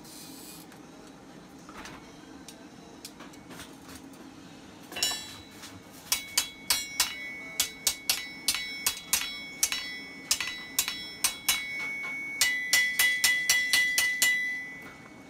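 Hand hammer striking a red-hot iron rod on an anvil: a run of sharp blows about two a second that quickens near the end, each with a high metallic ring from the anvil. The first few seconds hold only low background noise, then a single blow.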